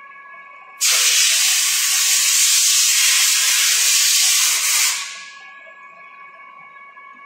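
A loud, steady hiss of pressurised gas jetting out, starting abruptly about a second in, lasting about four seconds, then trailing off.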